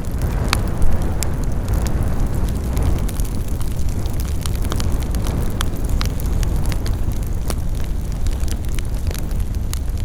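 Campfire burning: a steady low rush of flames with scattered crackles and sharp pops, one louder pop about a second in.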